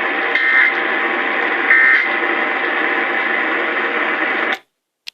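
AM radio broadcast hiss and static carrying two short bursts of Emergency Alert System data tones about a second and a half apart: the end-of-message code that closes the alert. The audio cuts off suddenly near the end.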